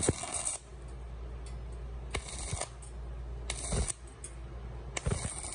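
Stick (MMA) arc welding at low current, about 14 amps, on thin sheet steel: the arc crackles and hisses in four short bursts of about half a second each as it is struck and broken again, stitching the thin metal.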